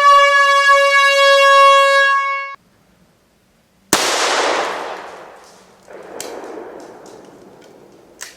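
A loud horn blast held on one steady pitch, cutting off sharply. After a second or so of silence, a single sharp bang with a long fading tail. A fainter rushing noise and a couple of small clicks follow.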